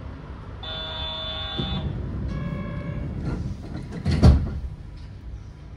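Yurikamome train door chime sounding two tones, then the sliding doors shutting with a single heavy thump about four seconds in, over the steady low hum of the stopped train.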